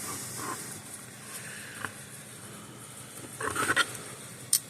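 Small scrapes and ticks of a soldering iron and tools working a diode's legs loose from a circuit board during desoldering. A louder burst of scraping comes near the end, then a single sharp tick.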